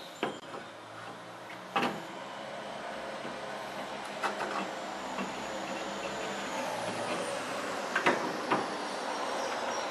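A new aluminium-core radiator with plastic tanks knocking and bumping against the radiator support a few times as it is lowered into the engine bay and its bottom pegs are seated in the rubber grommets, over a steady low background noise; the sharpest knocks come about two seconds in and about eight seconds in.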